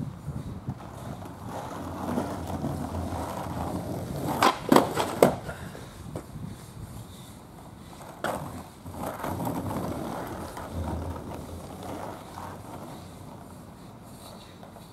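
Skateboard wheels rolling on rough asphalt, growing louder as the board comes near. A little over a third of the way in come three sharp clacks of the board in quick succession, another single clack about halfway, and then the rolling fades away.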